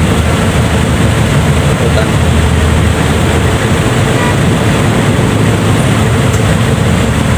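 Steady rush of wind and road noise on a moving motorcycle, buffeting the microphone, with the bike's engine running underneath.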